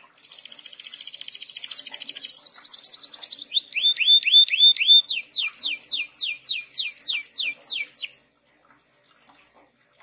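Domestic canary singing one long phrase: a fast rattling trill, then a higher trill, a few hooked notes, and a run of about a dozen quick falling whistles, growing louder before it breaks off about two seconds before the end.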